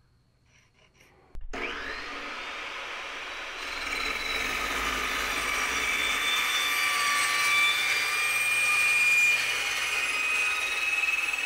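Fein Slugger 14-inch carbide-tipped chop saw starting up about a second and a half in, then its blade cutting into 3-inch 6061 aluminium tube with a steady, high whine that shifts in pitch and grows louder as the blade bites deeper. It is a trial cut toward a layout line for a pie-cut segment.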